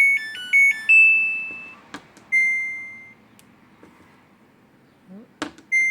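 Samsung Activ Dual Wash washing machine control board beeping after its damaged IC was replaced: a short electronic power-on tune of a few alternating notes ending in a held tone. Then two separate button clicks, each answered by a single beep.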